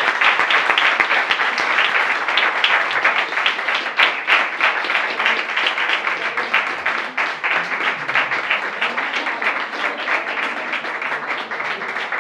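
Audience applauding steadily, many hands clapping at once, thinning out slightly near the end.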